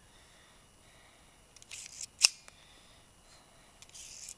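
A brief rustle, then one sharp click a little over two seconds in.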